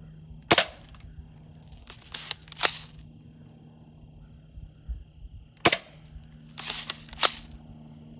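Two shots from a BB gun fired at a microwave, one about half a second in and one near six seconds, each a sharp crack followed about a second and a half later by a short run of clicks and rattles.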